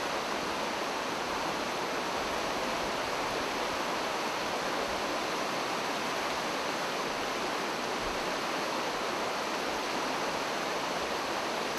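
Whitewater river rapids rushing, a steady, even wash of water noise.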